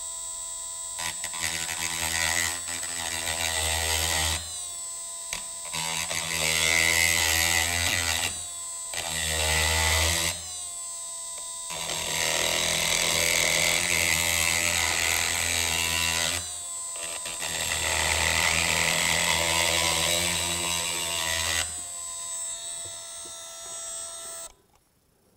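Milwaukee M12 brushless rotary tool running a carbide thread file at low speed against a rusted bolt's damaged threads to straighten them. A steady motor whine runs under about five passes of rasping metal-on-metal filing, each a few seconds long, and the tool cuts off near the end.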